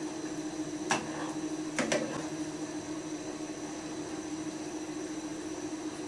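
A spoon knocking against a cooking pot of goulash while it is stirred: one sharp click about a second in, then two in quick succession. A steady low hum runs underneath.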